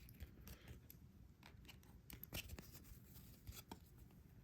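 Near silence with faint, scattered clicks and rustles of trading cards being handled and slid through a pack.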